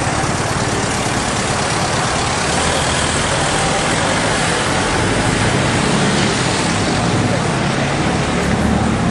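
Steady street traffic noise: the even rush of cars on the road, with indistinct voices in the background.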